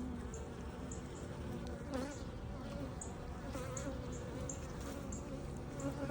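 A colony of honeybees buzzing around an opened hive: a steady hum from many bees in flight, its pitch wavering up and down.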